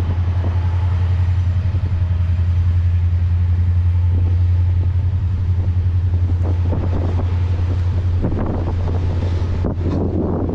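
Freight train rolling by: a steady low rumble, with the rattle of the cars growing louder about eight seconds in.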